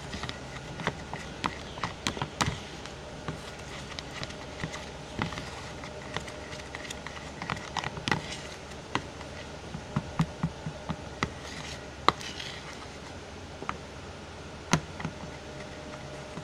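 Scattered light taps and clicks of a spoon and bowls being handled while slime ingredients are mixed, irregular and uneven, with a sharper knock about twelve seconds in and another near the end.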